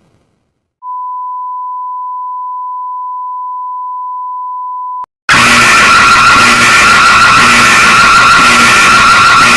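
Emergency alert alarm audio: a steady single beep-tone held for about four seconds, then cut off, and a moment later a very loud, harsh, noisy screech with a wavering high tone through it starts and keeps going.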